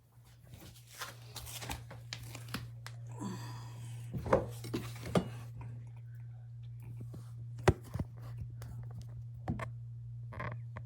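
Handling noises: scattered clicks and sharp knocks with crinkling and rustling, over a steady low hum.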